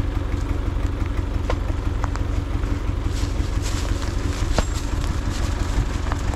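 Tractor engine idling steadily, with a few sharp knocks of stones being picked up and loaded into its trailer.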